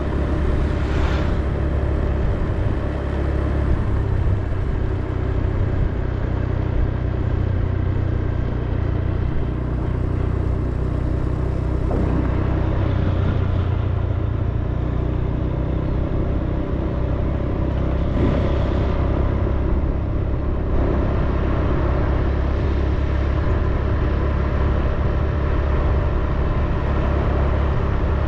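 Steady low rumble of a moving vehicle's engine and wind on the microphone, with other vehicles passing by briefly a few times.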